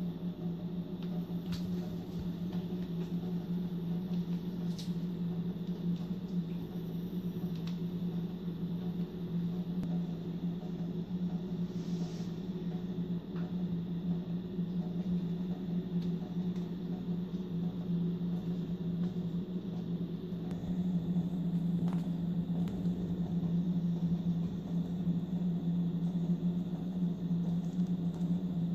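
Steady low machine hum, growing slightly louder about two-thirds of the way through, with a few faint taps and clicks over it.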